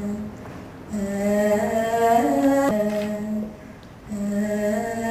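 A single unaccompanied voice singing a slow melody of long-held notes, stepping between pitches, with two short breaths between phrases.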